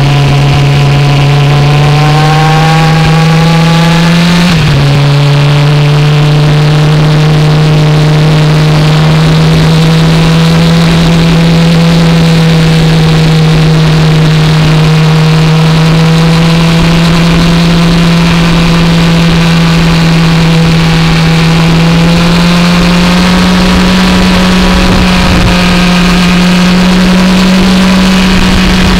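Motorcycle engine heard from a camera mounted on the bike, pulling hard with its pitch rising over the first few seconds. The pitch drops sharply at a gear change about four and a half seconds in, then holds a nearly steady high pitch with a slight rise near the end, over constant rushing noise.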